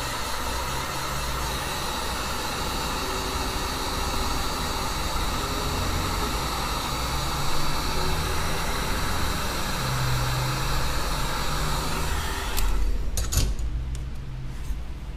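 Heat gun blowing hot air steadily onto the iPad Air's glass to soften the adhesive. It is switched off about twelve and a half seconds in, and a few sharp clicks follow.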